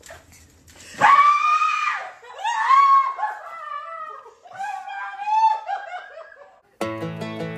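A woman's long, high scream of surprise about a second in, followed by a run of high, breaking emotional cries as she is surprised by a returning service member. Plucked-string music starts near the end.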